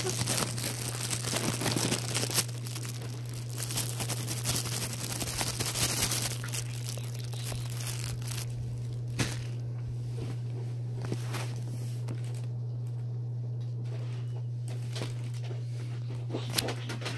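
Clear plastic packaging bag crinkling and rustling as a squishy toy is pushed back into it. The crinkling is dense for the first half, then dies down to a few scattered rustles and clicks, over a steady low hum.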